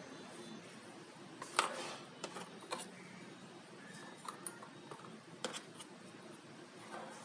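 Handling of a rotary tool kit's plastic case and accessories: a few sharp clicks and light knocks scattered over a faint steady background.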